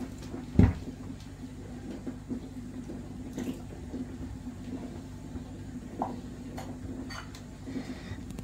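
Milk poured from a carton into a steel pot of simmering barley semolina porridge on a gas stove, over a steady low hum. A dull knock comes about half a second in, and a few light clicks of kitchen handling follow later.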